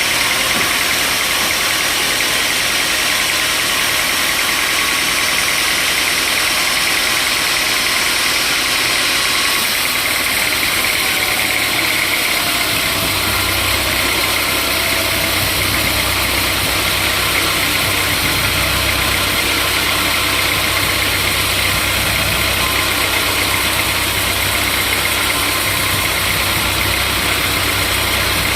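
Sawmill saw and its engine running steadily, with a dense hiss-like noise. A low hum comes in about twelve seconds in.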